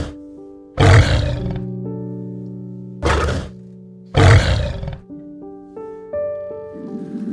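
A lion roaring in three short, loud bursts, about a second in, at three seconds and just after four seconds, over soft piano music.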